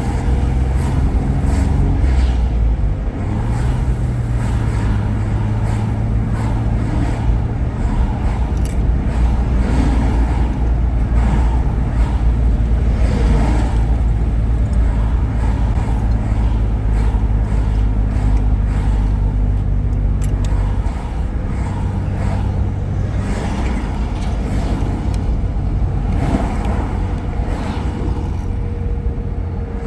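Car driving, heard from inside the cabin: a steady low engine and road rumble that eases slightly about two-thirds of the way through.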